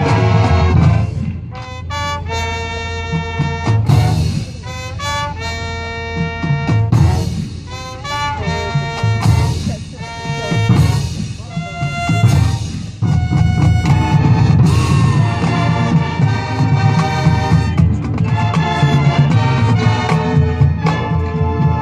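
High school marching band playing its competition field show: held brass chords over drums and front-ensemble percussion, with loud accented hits every few seconds and the volume swelling and falling.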